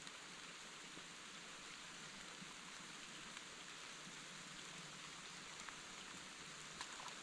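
Light rain falling: a faint, steady hiss with a few soft ticks.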